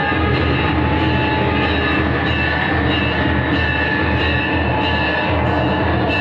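Loud, steady din of a temple aarti: bells ringing over and over with drumming, echoing through the halls.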